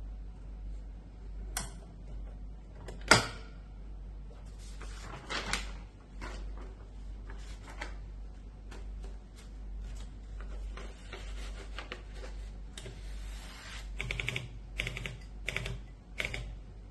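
1950s Royal Quiet De Luxe portable typewriter being worked: scattered key and mechanism clicks, one sharp loud strike about three seconds in, and quick runs of clacks near the end.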